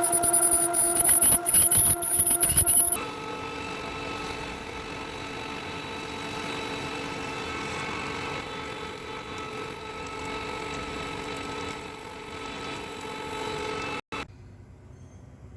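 Metal lathe turning down the steel body of a drill-pipe tool joint: a steady machine hum with ringing tones and scraping clicks from the cut, the tones shifting in pitch about three seconds in. It cuts off abruptly near the end, leaving a faint hum.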